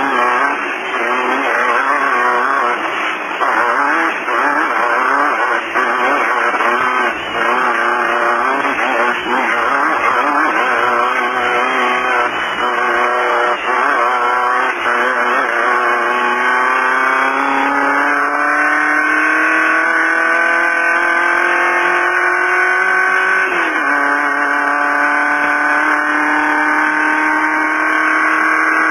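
Off-road race VW Beetle's engine running hard at speed, uneven and rough for the first half, then its revs climbing smoothly. About 24 seconds in the pitch dips once, then holds high and steady.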